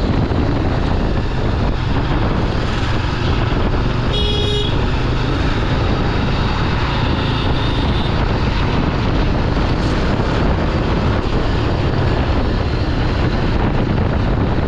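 Steady riding noise on a moving Yezdi Adventure motorcycle: wind rushing over the microphone mixed with the engine and road traffic. About four seconds in, a vehicle horn toots once, briefly.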